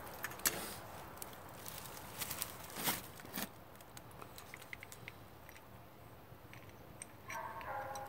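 Faint, scattered clicks and light rattles from a removed Mercedes Sprinter electronic ignition switch being handled and turned over in the hands.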